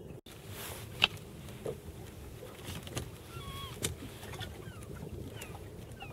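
Short, thin bird chirps over a steady low outdoor rumble of wind and water, with a sharp click about a second in.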